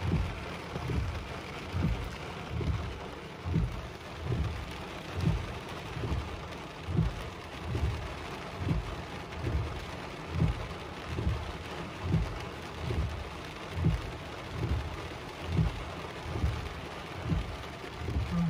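Steady rain falling on a parked car, heard from inside. Under it, a regular soft low thump comes a little more than once a second.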